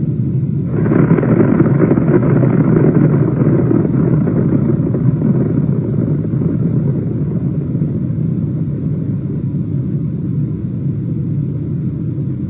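Deep, continuous rumble of a large explosion sound effect. It swells about a second in, then slowly fades away.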